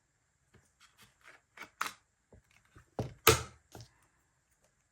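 Irregular clicks and knocks of a light stick and its batteries being handled while batteries are fitted, with one louder knock about three seconds in.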